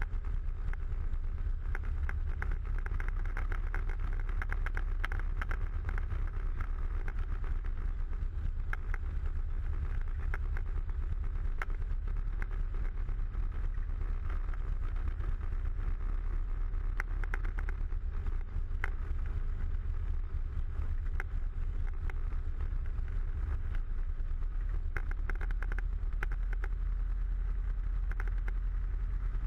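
Light aircraft's piston engine and propeller running at low power while taxiing, heard from inside the cockpit: a steady low drone with scattered light clicks over it.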